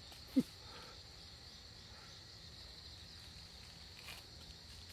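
Crickets chirring in a steady, even drone, with one short vocal sound from a man about half a second in.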